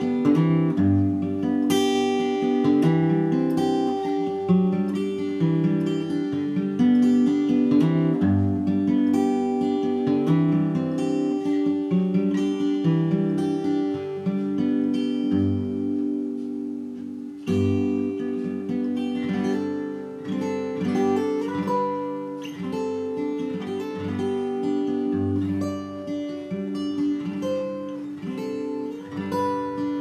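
Solo left-handed Collings steel-string acoustic guitar fingerpicked in open D tuning (D A D F# A D), capoed at the fifth fret so it sounds in G: a folk melody over sustained ringing strings and recurring low bass notes.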